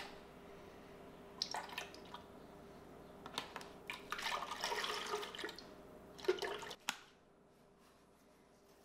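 Almond milk poured from a carton into an empty plastic blender jar, splashing for about a second and a half around the middle. Before and after it come clicks and rustles of cartons being handled and opened. The last two seconds are quiet.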